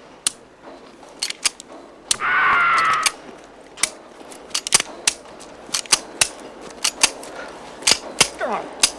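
A rapid, irregular series of sharp metallic clicks and knocks, with a brief loud wavering high-pitched tone about two seconds in that lasts about a second.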